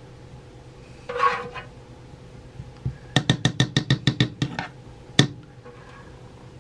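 Spatula rapped quickly against the rim of a nonstick frying pan, about a dozen sharp taps in under two seconds about halfway in, then one more sharp tap, shaking bacon grease off into the pan.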